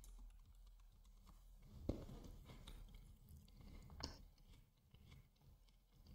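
Near silence with a few faint clicks, the sharpest about two seconds in and another about four seconds in.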